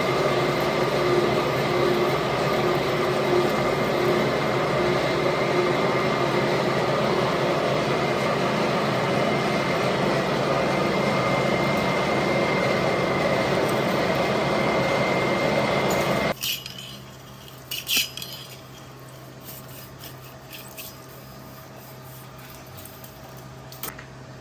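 Manual lathe running under a boring cut, a loud steady machine noise with a high whine, which cuts off suddenly about two-thirds of the way in. After it a low hum remains, with a few metal clinks.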